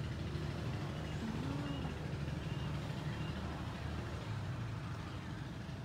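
A truck's engine idling with a steady, low drone.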